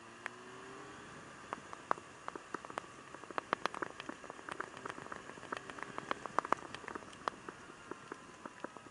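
Raindrops tapping irregularly on the camera as a quick, uneven patter that is densest in the middle, over faint rain hiss and the faint hum of the Yamaha Thundercat motorcycle's engine.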